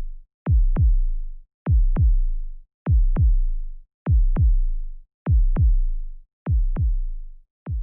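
Electronic heartbeat sound effect: pairs of deep, booming thumps in a lub-dub rhythm, a pair about every 1.2 seconds, about seven pairs in all.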